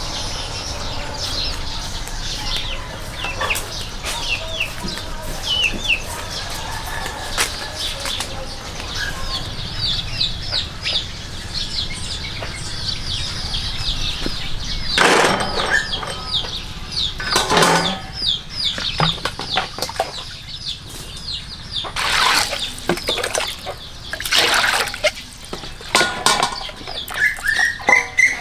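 Birds chirping in quick, repeated short high notes, broken by several loud rushing bursts of about a second each, around the middle and in the last third.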